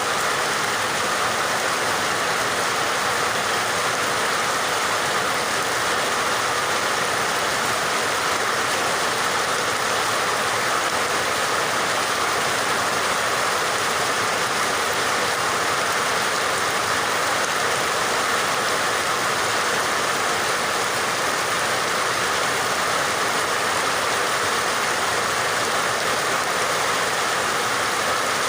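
Steady, even rain sound with no distinct drops or breaks.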